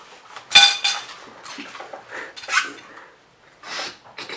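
Cutlery clinks sharply against a plate about half a second in, ringing briefly, followed by several short noisy bursts of someone eating greedily face-down over the plate.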